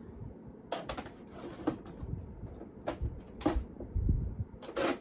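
Light clicks and knocks of skincare bottles and jars being handled and set down, about half a dozen spread out, with a few dull low thumps in the second half.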